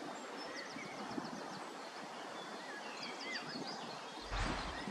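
Outdoor ambience: a steady hiss of background noise with small birds chirping and trilling now and then, and a brief low rumble on the microphone near the end.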